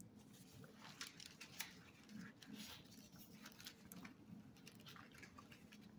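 Faint rustling and light clicks of paper and a book being handled on a table.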